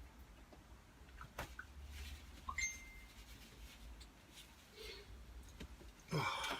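Faint scattered clicks and taps of cutlery on a plate during a quiet meal, with a brief high tone about two and a half seconds in and a short louder rustle near the end.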